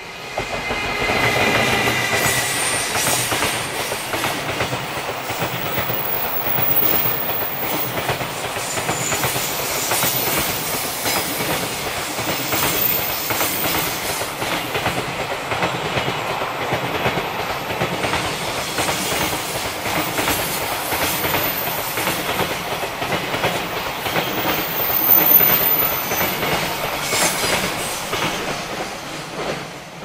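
A JR Freight EF210 electric locomotive and its long rake of container wagons passing close by, with the wheels clattering over the rail joints in a steady rhythm. The sound comes up suddenly at the start and fades near the end as the last wagons go away.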